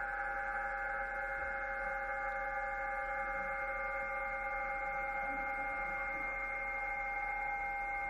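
Audio from a Yaesu HF transceiver tuned near 14.070 MHz on the 20 m band: several steady tones at different pitches sit over band hiss, one of them pulsing slightly. These are digital-mode signals such as PSK31, heard as strange noises.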